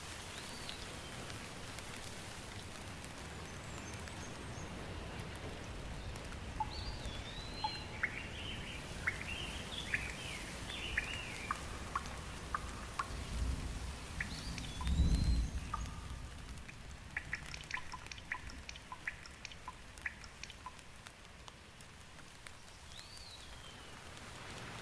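Steady rain falling, with birds calling in short chirps now and then and drops ticking sharply in the second half. A low rumble swells briefly about halfway through.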